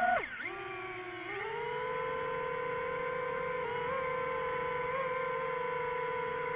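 DJI FPV drone's motors and propellers humming at one steady pitch. The pitch drops just after the start, climbs back about a second in, then holds with slight wobbles.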